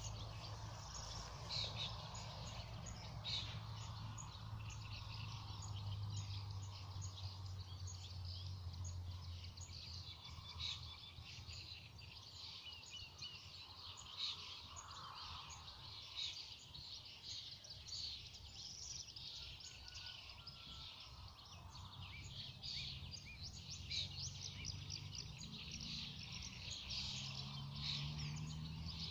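Several songbirds singing at once, a dense run of short, high chirps and trills, over a low steady hum.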